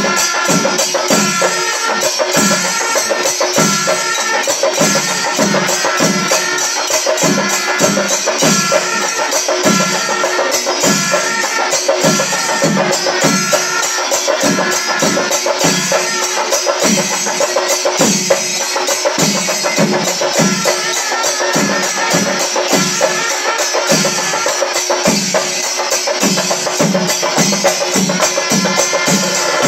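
Kerala melam ensemble playing: chenda drums beating about twice a second under a dense clash of ilathalam cymbals, with kuzhal pipes holding a reedy melody above.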